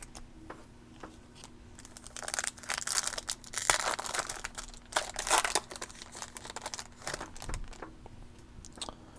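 Foil trading-card pack wrapper being torn open and crinkled, starting about two seconds in and lasting a few seconds, with lighter handling clicks before and after.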